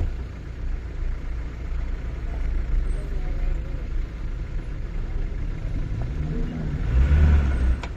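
Safari vehicle's engine running as it drives on, a steady low rumble. Near the end it revs, rising and falling in pitch and getting louder.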